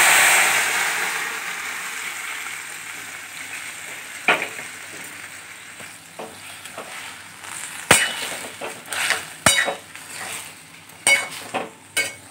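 Boiled ash gourd pieces tipped into hot mustard-oil tempering in a kadai: a loud sizzle at the start that dies down over a couple of seconds to a quiet frying hiss. In the second half a metal spatula knocks and scrapes against the pan several times as the gourd is stirred.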